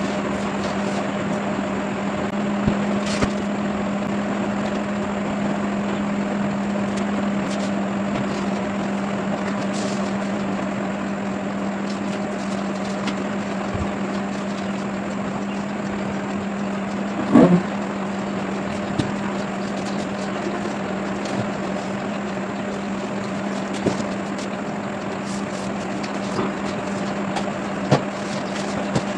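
A machine running with a steady, even hum, broken by a few light clicks and one louder knock about seventeen seconds in.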